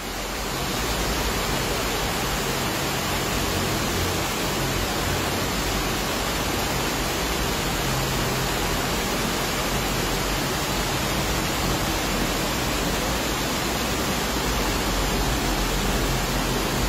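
Steady rushing noise of torrential rain and fast-flowing floodwater through a street, getting a little louder within the first second and then holding even.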